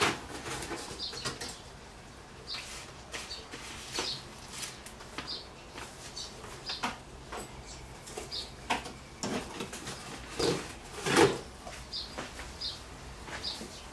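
Blackbirds giving short high chirps, roughly one a second, among scattered knocks and rustles of hands and birds moving about a food bowl on a worktop. The loudest is a rustling thump about eleven seconds in.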